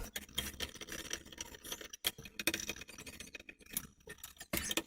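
Light clicks and metallic clinks of small screws and ceiling-fan parts being handled, scattered irregularly.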